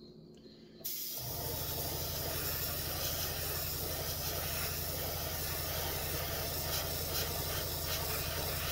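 Airbrush spraying paint, a steady hiss of air starting about a second in. A small airbrush compressor switches on just after and runs with a steady low hum underneath.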